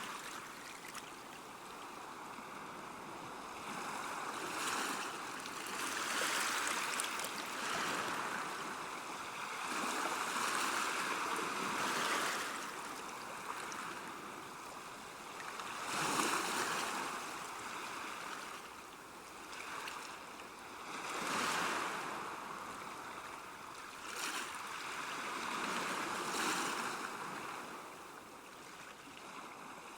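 Choppy sea waves washing and splashing, surging and easing every few seconds, with the strongest surge about halfway through.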